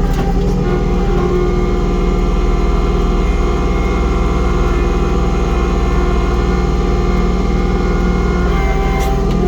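Kubota compact tractor's diesel engine running steadily with its PTO-driven snowblower, working through heavy snow.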